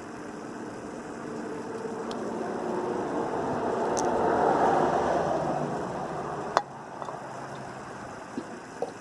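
A motor vehicle passing by, its engine and tyre noise swelling to a peak about four to five seconds in and then fading away, with a few light clicks.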